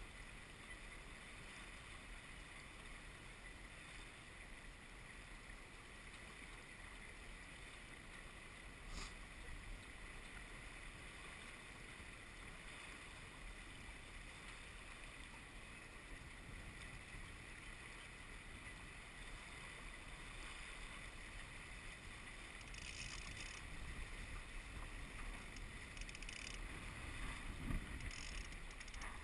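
Walker Bay 10 sailing dinghy under way: faint steady water lapping and gurgling along the small hull, with light wind on the microphone. A few brief rattles come in the last several seconds, with one short peak near the end.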